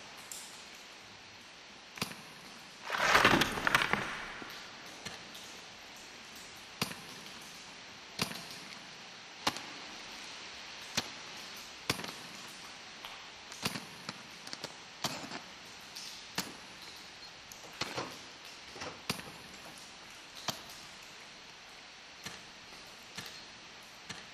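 Ice axes and crampons knocking into ice in sharp, irregular strikes about once a second, with one louder, longer crunch of scraping ice about three seconds in.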